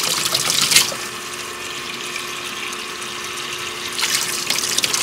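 Water running from a utility-sink faucet and splashing over a hand held in the stream. The splashing is louder during the first second and again from about four seconds in.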